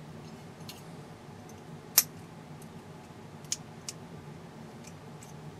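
Small side cutters snipping the wire leads at the base of a CRT electron gun: one sharp snip about two seconds in, then two smaller clicks about a second and a half later.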